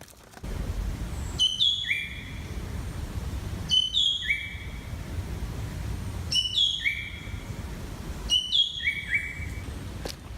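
A bird calling four times, about every two and a half seconds. Each call is a quick run of high notes falling in pitch, ending on a lower, steady note. A low rumble runs underneath from about half a second in.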